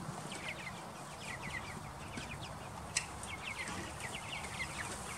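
Young chicks peeping over and over, many short falling chirps, with one sharp knock about three seconds in.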